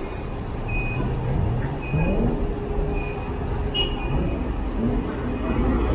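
Motor vehicle engines running in street traffic, with an engine rising in pitch several times as it accelerates.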